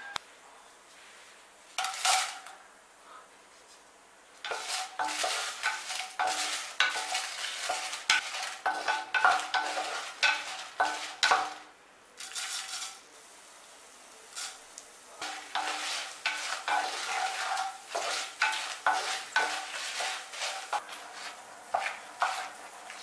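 Wooden spatula scraping and stirring dried red chillies and coriander seeds frying in a little oil in an unglazed clay pot, with a light sizzle. The stirring comes as quick strokes in two long runs with a pause in the middle; a short clatter about two seconds in and another near twelve seconds, when the seeds go in.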